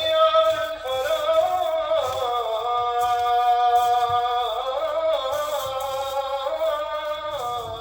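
Background music: a single melodic line of long held notes that glide smoothly from one pitch to the next, fading out near the end.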